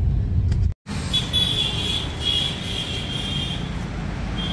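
Low, steady road rumble inside a moving car's cabin, broken off by a sudden cut under a second in; then street traffic noise, with a thin high-pitched sound that comes and goes for a couple of seconds.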